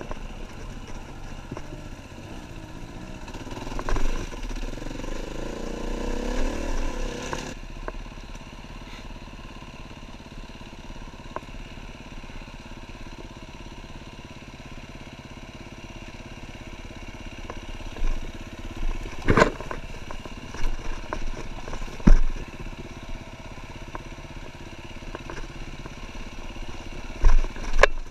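KTM EXC-F 350 single-cylinder four-stroke engine running under throttle off-road, heard from an on-board camera. There are several sharp knocks in the second half.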